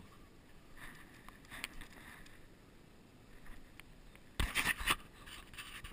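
Scuffs and scrapes of a person climbing and stepping on a gritty concrete floor, with a few faint knocks early on and a cluster of louder scrapes about four and a half seconds in.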